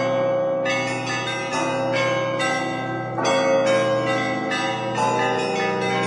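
Russian Orthodox church bells rung by a bell-ringer: overlapping strikes of the smaller bells, about two a second, over the lasting low hum of the big bells.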